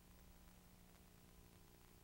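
Near silence, with a faint steady low hum.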